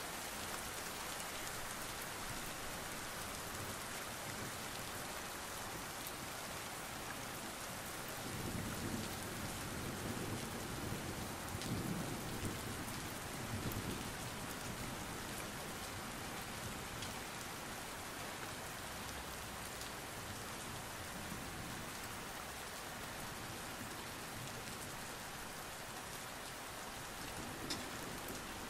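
Steady rain falling on hard ground, an even hiss with scattered drop ticks. A low rumble swells and fades in the middle.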